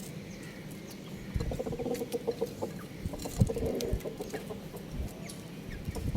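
Chicken calling in a run of quick, pulsed clucks between about one and four seconds in.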